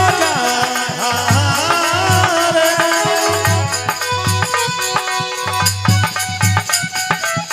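Instrumental break in a Rajasthani folk bhajan: a melody instrument plays over a recurring low drum beat and rattling, jingling hand percussion.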